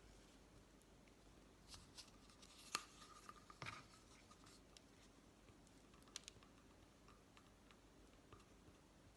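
Faint scraping and a few light taps of a utensil spreading sticky honey over a cardboard toilet roll tube, the sharpest tap a little under three seconds in.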